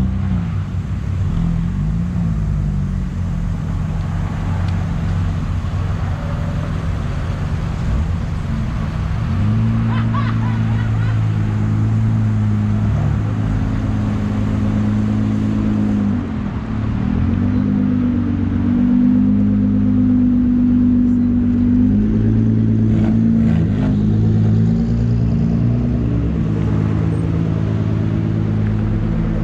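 Engines of several sports cars running at low speed as they drive slowly past one after another: a steady low engine hum that shifts in pitch as cars come and go.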